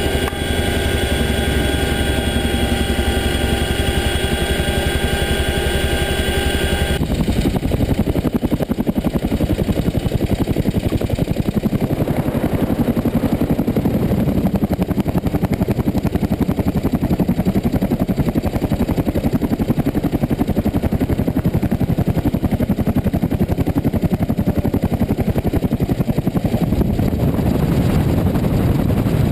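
CH-47 Chinook tandem-rotor helicopter in flight. At first, from the cockpit, steady whining tones of the turbines and gearboxes ride over rotor noise. About seven seconds in the sound switches abruptly to rough rotor chop and wind noise, picked up outside the fuselage.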